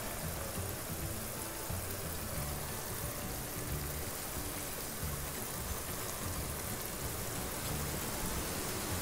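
Thick pineapple-onion masala sizzling and simmering in a frying pan, a steady hiss as raw hilsa fish steaks are laid into it, with soft background music.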